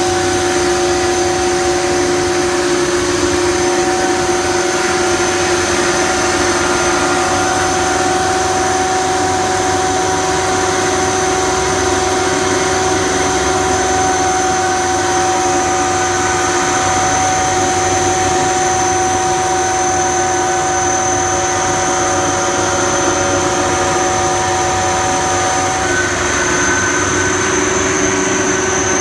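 Ingersoll Rand SSR-EP40SE 40 hp rotary screw air compressor, driven by a three-phase electric motor, running steadily with a loud even hum and a high whine. Near the end one whine tone drops out and a higher one comes in.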